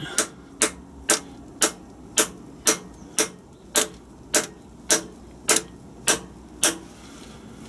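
Hammer tapping a homemade steel drift (a nut on a threaded rod through a socket and washers) to drive a new spigot bearing into the end of a Land Rover TD5 crankshaft. There are about thirteen sharp, light metallic taps, roughly two a second, stopping shortly before the end, as the bearing goes in smoothly.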